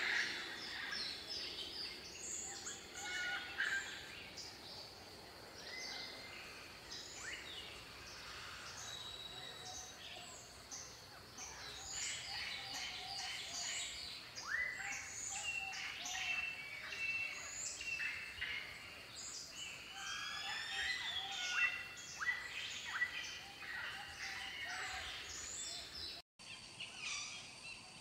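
A chorus of several birds chirping and singing together, with many quick high chirps, whistled notes and sliding notes overlapping. The sound cuts out abruptly for a moment near the end.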